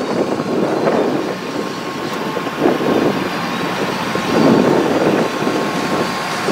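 4x4 engine running while the vehicle drives through snow, swelling and easing in loudness several times.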